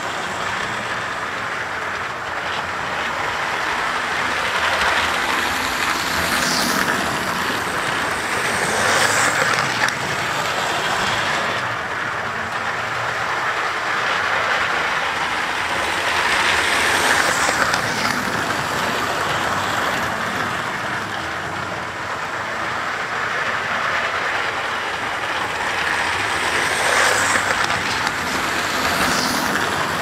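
Model railway trains running on the layout: a steady hum of locomotive motors and wheels on the rails, swelling several times as the trains come nearer the camera.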